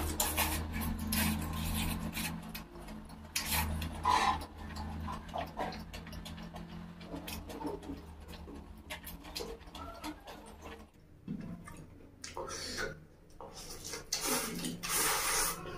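Close-up eating sounds of chow mein noodles being chewed and pushed into the mouth by hand: wet mouth smacks and clicks at irregular times, loudest near the end. A low steady hum runs underneath and stops about two-thirds of the way through.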